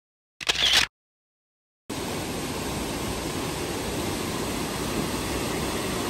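One camera-shutter click about half a second in. From about two seconds in, the Kuhflucht waterfall's cascades make a steady rush of falling water.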